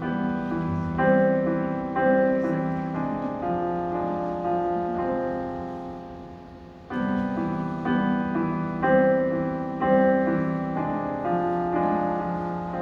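Slow piano introduction to a ballad: sustained chords with a simple melody on top, a new phrase starting about halfway through.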